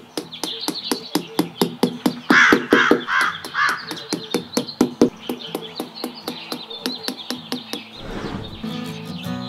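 A bird cawing four times in quick succession, harsh and evenly spaced, over background music with sustained tones and a steady clicking beat.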